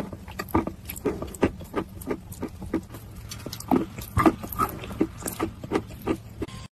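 Close-miked chewing with the lips closed: wet mouth clicks and smacks at an irregular pace, about two to three a second, that cut off suddenly near the end.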